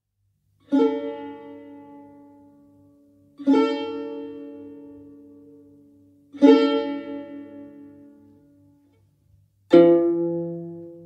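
Tar, the Persian long-necked lute, sounding four single plucked notes about three seconds apart, each ringing out and slowly fading; the last note is at a different pitch from the first three. A faint low pulsing hum runs underneath.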